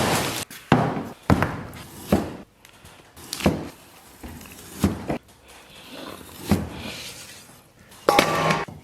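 Cleaver chopping through beef ribs: about seven separate heavy chops, spaced a second or so apart.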